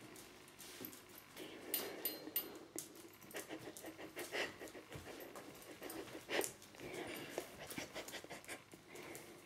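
Border Collie panting and sniffing in short, irregular breaths as she searches the floor with her nose down.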